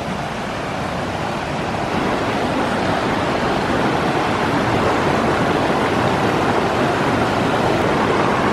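Mountain creek rushing over boulders, a steady loud roar of water that grows a little louder in the first couple of seconds as the footbridge over it is reached.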